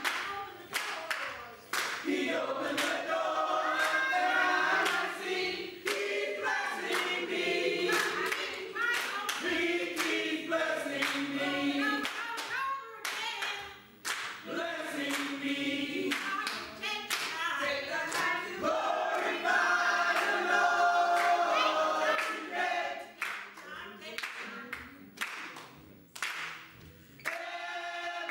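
Church choir singing with hand clapping along, in repeated sharp claps through the song.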